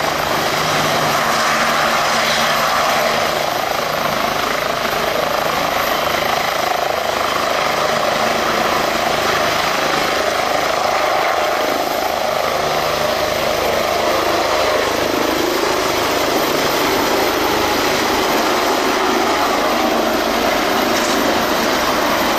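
Bell 429 twin-turbine helicopter lifting off and climbing away, its main rotor and turbines running at take-off power with a steady, dense noise.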